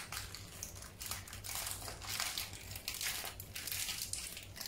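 Plastic snack wrapper crinkling as it is crumpled and folded in the hands, an irregular run of crackles.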